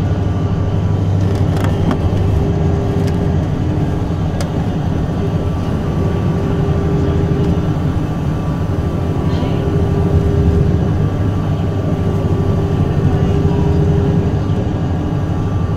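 Interior sound of a Golden Dragon XML6105JHEVG5C6 plug-in hybrid city bus driving along: a steady low drive-train drone with a faint whine that comes and goes, heard from inside the passenger cabin.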